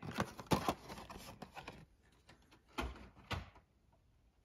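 Die-cast toy cars in cardboard-backed plastic blister packs rustling and clicking as they are handled for about two seconds, then two light knocks as they are set down.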